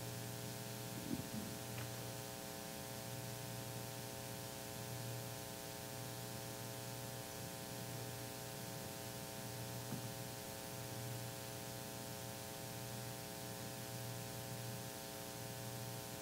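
Steady electrical mains hum with a stack of even harmonics over faint hiss, the background buzz of the room's sound system or recording chain while no one speaks.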